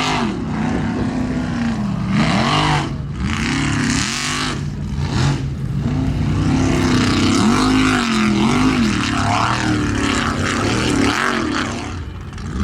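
Formula offroad hill-climb buggy's engine revving hard, its pitch climbing and dropping again and again as the throttle is worked. The sound dips briefly near the end.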